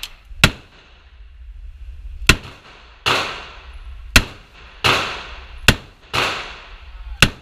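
Gunfire in an indoor shooting range: eight shots about a second apart. Some are short sharp cracks and others carry a longer echoing tail off the range walls.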